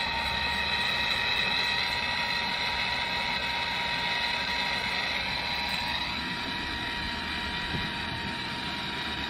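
Propane torch burning on a MAP-gas torch head, a steady hiss with a faint high whistle, as it heats an aluminum part for brazing.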